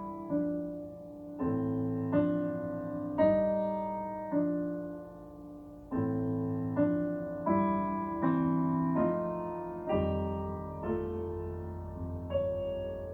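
Piano playing slow chords without singing, each chord struck and left to ring as it fades, about one a second, with a deeper bass note held near the end.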